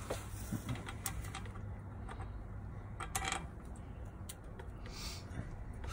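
Light metallic clicks and clinks as bolts and the U-joint strap are fitted by hand at the driveshaft's rear differential yoke. The clicks come scattered, with a small cluster about three seconds in.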